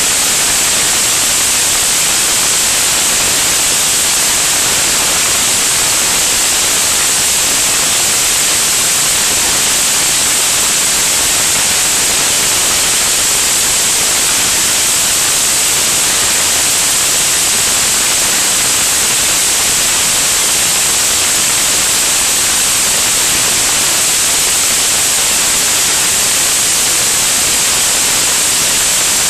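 Steady, loud, high-pitched hiss of air rushing past a camera mounted under an aircraft's wing in flight.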